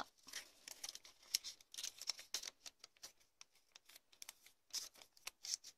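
Sheet of origami paper rustling and crinkling in the fingers as it is folded back and creased, a string of small irregular crackles.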